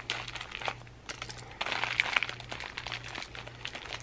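Plastic mailer wrapping crinkling and crackling as a small package is cut with scissors and pulled open by hand, growing louder about a second and a half in.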